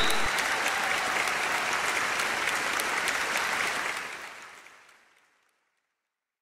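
Applause from a group of people clapping, which fades out and ends in silence about five seconds in.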